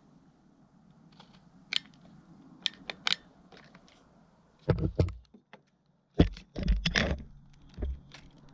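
Light plastic clicks as a finger pushes a drone's camera gimbal about, then two spells of loud thumps and rubbing, about five and seven seconds in, as the drone's plastic body is handled and lifted.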